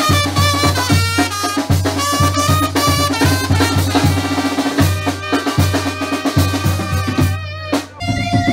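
A live band playing: clarinet and trumpet carry a melody over a drum kit and a steady bass line, with a brief drop-out near the end.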